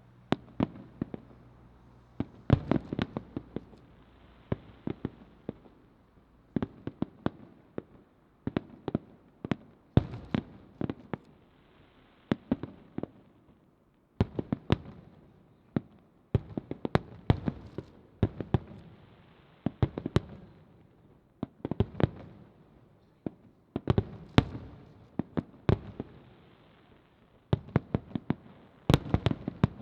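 Aerial firework shells bursting in quick clusters of sharp bangs, a new volley every second or two, each trailing off in a fading rumble.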